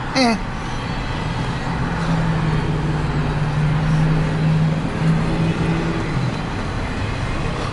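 Intermodal freight train rolling past as a steady rumble, with a low steady hum through the middle.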